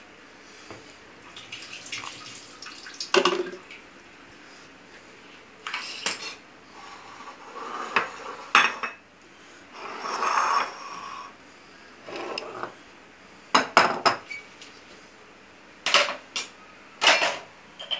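Plates and cutlery being handled and set down on a marble countertop: irregular clinks and knocks, with a quick cluster of them about three-quarters of the way through.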